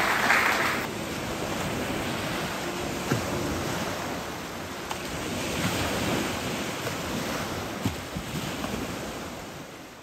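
Applause dies away in the first second. Then small waves wash onto a pebbly shore in a steady rush that swells once around the middle, with a few faint clicks, and fades out near the end.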